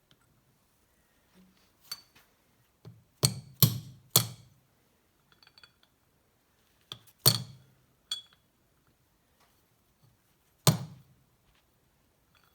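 Hammer tapping on the Mercury Sport Jet engine's piston pin to ease it back after it was driven in a little too far: three quick taps, then two single taps a few seconds apart, with faint metallic clicks between.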